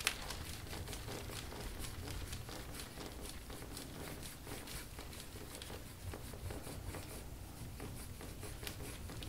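Quiet, irregular rubbing and light scratching of hands or a tool working over the skin during deep-tissue massage of a patient's back, over a low steady room hum.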